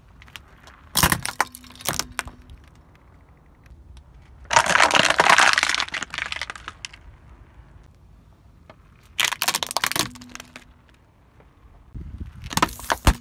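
A car tyre crushing objects one after another on asphalt. Sharp cracks of breaking plastic come near the start, about 9 to 10 seconds in, and near the end, and a longer hissing crackle in the middle comes as liquid sprays out from under the tyre.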